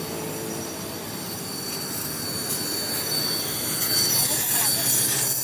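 Gas torch flame hissing steadily with a thin high whistle, playing on a truck differential's pinion flange. The whistle grows louder near the end.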